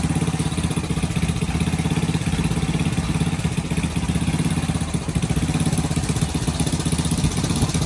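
Small gasoline engine of a pressure washer running steadily at a constant speed.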